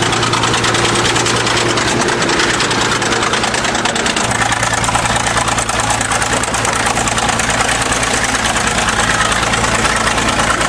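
1953 International TD-20 crawler dozer's diesel engine running steadily at idle, with a fast, even pulse of the firing strokes.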